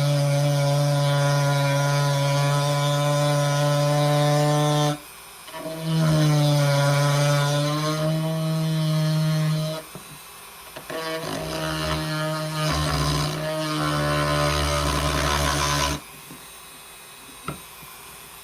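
An electric power tool working wood, running in three bursts of a few seconds each with short stops between, its motor winding up at the start of the second burst. A single click near the end.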